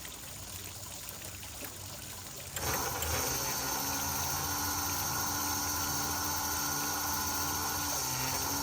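Electric hose reel motor starting about two and a half seconds in and running steadily with a constant whine, winding the hose back onto the reel.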